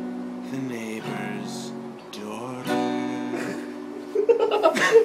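Acoustic guitar being strummed, its chords ringing, with a run of harder, choppier strokes near the end.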